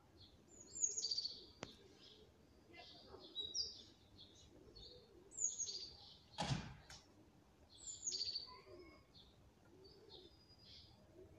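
Small birds chirping, with short, high, falling chirps every couple of seconds, and one brief knock a little past halfway.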